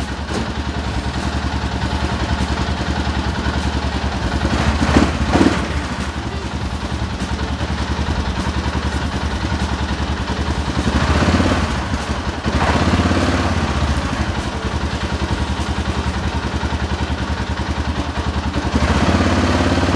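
2007 Arctic Cat 650 H1 ATV's single-cylinder engine idling steadily, with brief louder stretches about five seconds in and again around eleven to thirteen seconds in.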